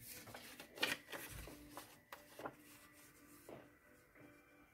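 Paper being handled on a tabletop: short rustles and light taps as paper pieces are picked up and laid down, the loudest about a second in.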